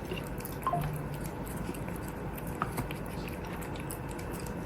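A cat chewing shrimp: small, sparse wet clicks, with one short squeak under a second in.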